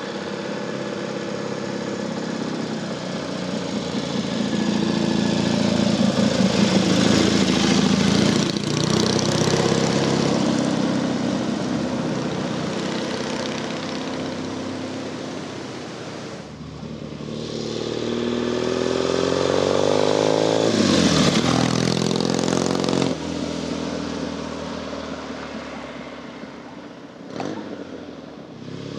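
A vehicle engine under way on the road, accelerating with its pitch rising through the gears. There are sudden drops at the gear changes, and it eases off between bursts of acceleration.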